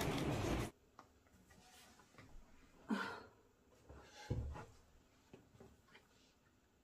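A loud busy background cuts off sharply under a second in, leaving a quiet room. Two soft handling sounds follow, about three and four and a half seconds in, as plastic toothpaste tubes are picked up from a table.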